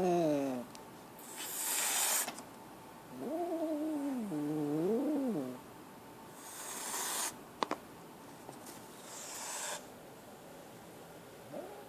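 A frightened kitten crying out in drawn, wavering meows, the first falling in pitch as it fades. Three short hisses of about a second each come between the cries, and another cry starts near the end.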